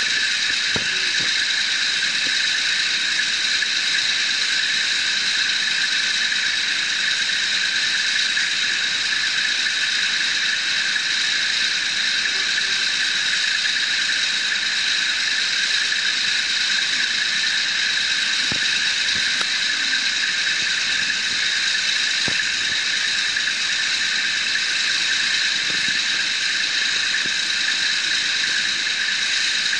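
Rig-moving trucks and their winches running under load as a drilling-rig draworks is lowered: a steady high-pitched whine over a constant hiss, with a few faint knocks.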